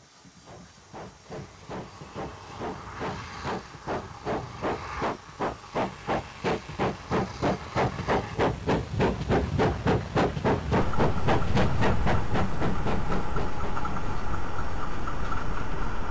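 Steam locomotive chuffing for the 2-8-0 freight engine No. 2818, at about three exhaust beats a second. The beats grow steadily louder as it nears the tunnel mouth, and about eleven seconds in they blend into a steady hiss of steam.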